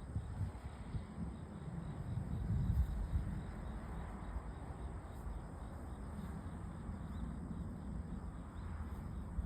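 Outdoor ambience: a steady low rumble with faint insect chirping.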